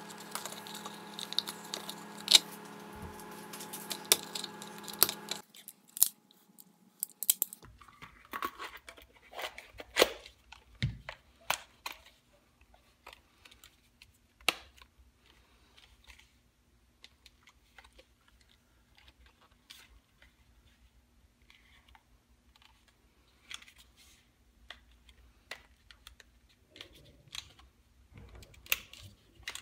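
Handling sounds of a leather pancake holster as a 1911 pistol is pushed in and worked out: leather rubbing and creaking, with scattered sharp clicks. For the first five seconds the clicks come over a steady hum that cuts off suddenly.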